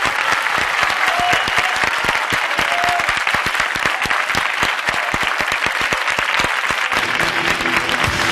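Audience applauding, a dense patter of many hands clapping. Near the end, music comes in underneath with sustained chords.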